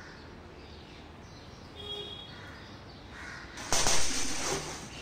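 A man's loud, hoarse yell lasting about a second, starting about three and a half seconds in.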